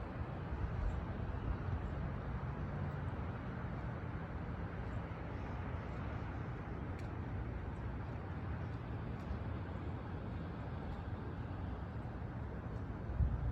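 Steady low rumble with a softer hiss above it and no distinct events, like outdoor background noise; a brief low thump comes near the end.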